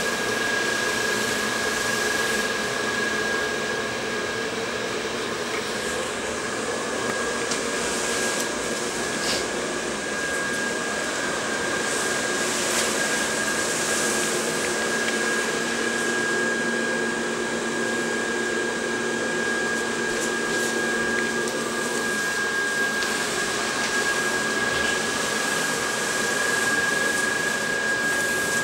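Blower fan of an inflatable igloo lawn ornament running with a steady whir and a constant high whine. A lower hum joins in for about ten seconds in the middle.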